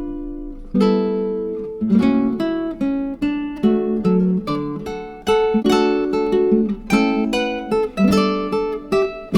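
Background music: strummed acoustic guitar chords, struck about once or twice a second.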